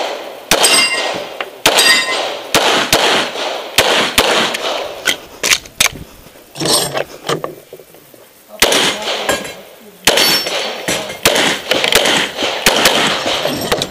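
Pistol shots fired in pairs and quick strings, a few tenths of a second apart, with a lull of about two seconds in the middle before the shooting picks up again. A metallic ringing follows a few of the shots.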